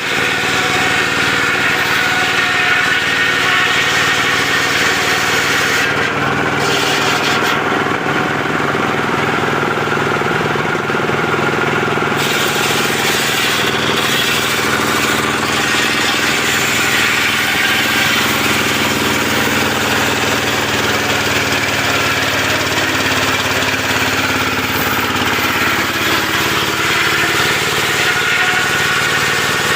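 Portable sawmill's engine running steadily, its pitch shifting a little about two-thirds of the way through.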